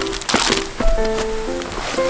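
Background music: a melody of held notes changing every fraction of a second, with some crackly clicks under it.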